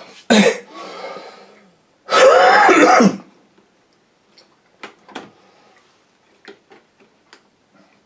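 A man clears his throat and coughs, loudest about two seconds in. Then come a few light plastic clicks and taps as a hand works the top of a Nescafé Dolce Gusto Jovia capsule coffee machine.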